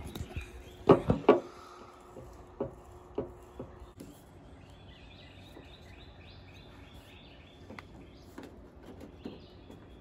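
Two sharp clicks about a second in and a few lighter taps over the next few seconds, then a faint outdoor background with birds chirping.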